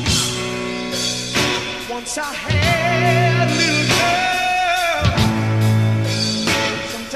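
Live rock band playing a slow song: electric guitar, bass and drums, with a male lead voice holding long wavering notes in the middle, and drum hits marking the chord changes.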